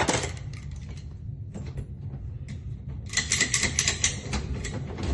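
Lock pick and tension wrench working the pins of a cylinder lock: scattered small metallic clicks, then a quick run of clicks and scrapes about three seconds in, over a steady low hum.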